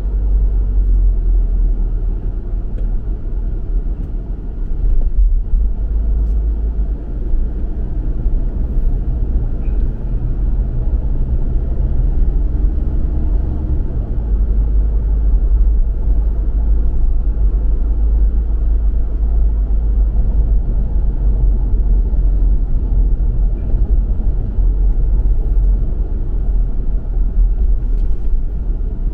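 Car being driven: a steady, low rumble of engine and road noise.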